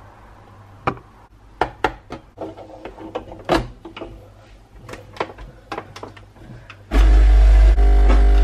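Metal clicks and knocks of a portafilter being tamped and locked into a De'Longhi espresso machine, then about seven seconds in the machine's vibration pump starts with a loud steady buzz as the espresso shot begins to pour.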